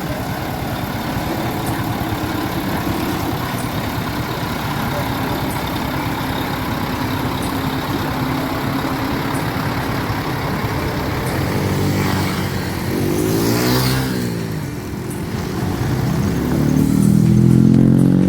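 Motor vehicle engines running steadily. About 13 seconds in, one revs up and back down, and a louder, deeper engine comes in near the end.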